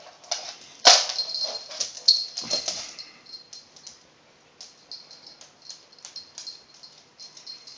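Claws of a raccoon dog and a silver fox clicking irregularly on a laminate floor as they walk, with a louder scuffle about a second in.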